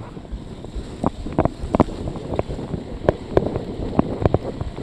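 Wind rushing over the camera microphone as a cyclocross bike rides through fresh snow in a snowstorm, with irregular sharp clicks and knocks from the bike, about one or two a second.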